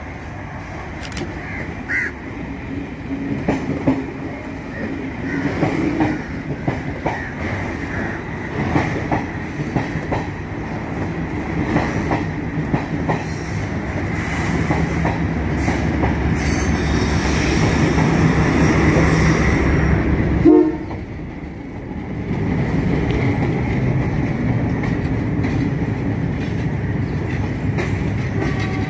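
Sri Lanka Railways diesel multiple unit passing close by with its engine running and its wheels clacking over the rail joints, followed by a train of red carriages rolling past. The sound builds to its loudest, drops sharply about twenty seconds in, then settles into steady wheel noise.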